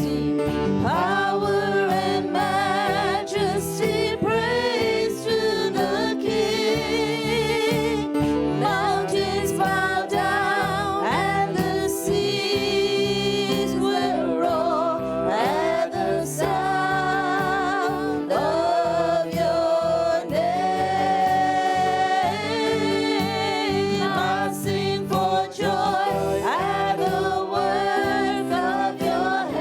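Gospel worship music: a singer with strong vibrato over sustained keyboard chords and a steady beat.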